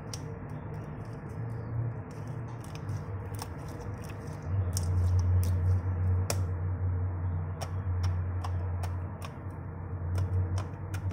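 Homemade slime being squeezed and worked by hand, making irregular sticky clicks and small pops, over a low steady hum that gets louder about four and a half seconds in.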